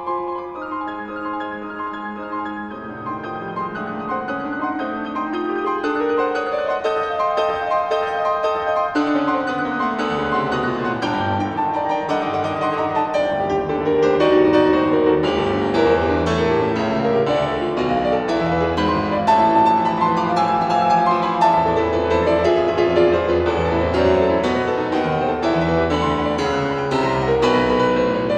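Solo classical piano played on a Steinway & Sons grand piano. A sweeping run climbs and falls back over the first ten seconds or so, then the playing grows louder and fuller, with heavier bass, from about halfway through.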